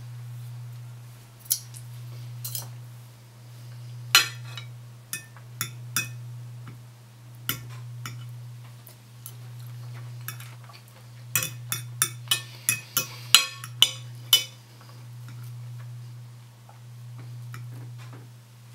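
Metal knife and fork clinking and scraping against a white china plate as food is cut and picked up, in scattered taps with a quick run of clinks about eleven seconds in. A steady low hum underneath.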